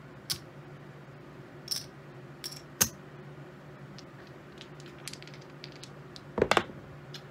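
Poker chips and dice clicking on a craps table layout as they are handled and gathered: a few scattered sharp clicks, then a quick louder cluster of clacks near the end, over a steady low hum.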